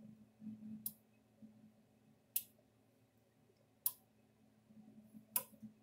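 Stafix M36R electric fence energizer pulsing under a 150-ohm resistor load: four sharp clicks about one and a half seconds apart, over a faint low hum.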